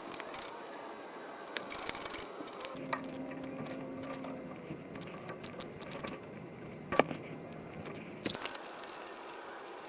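Hand tools working on the bolts of a pickup's rear differential cover: scattered metal clicks and knocks, with a short steady hum about three seconds in. The loudest knock comes about seven seconds in.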